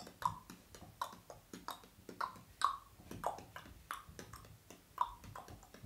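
A person making a quick, uneven run of sharp clicks and pops, about three a second, the loudest with a short hollow ring.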